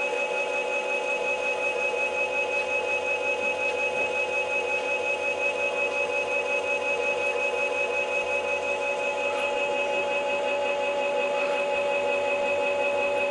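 Brushless electric hub motor spinning freely with no load under controller power, 36 V in boost mode: a steady electric whine with several high tones and a slight fast pulsing.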